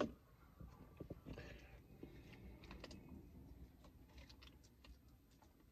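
Near silence with faint scattered clicks and rustles of someone handling and eating fried chicken, with one sharper click right at the start.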